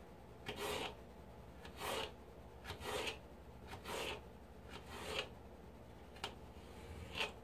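Kitchen knife slicing a raw potato into thin french-fry pieces on a plastic cutting board: seven short cuts, about one a second.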